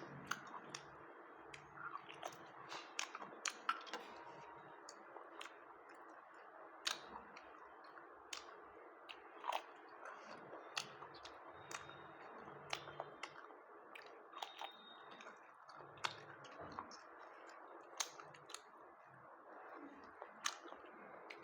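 A person chewing food with the mouth open, with frequent sharp, irregular smacking clicks.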